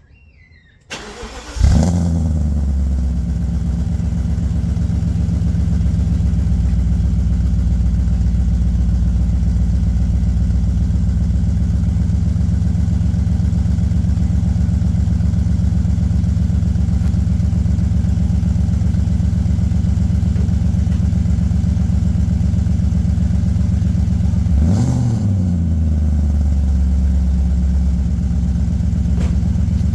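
BMW 540i's 4.4-litre V8 cold-starting: a brief crank, then it catches with a short flare and settles into a steady idle. Near the end the throttle is blipped once, the revs rising and falling.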